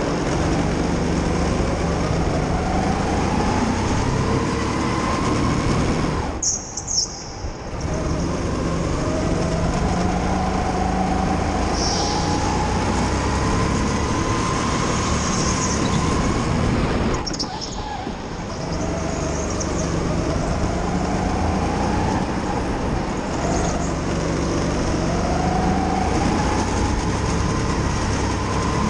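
A go-kart's motor heard from onboard while lapping, its pitch rising and falling again and again as it accelerates out of corners and eases off into them. The sound drops briefly twice, about six and seventeen seconds in, and there are short high-pitched squeals now and then.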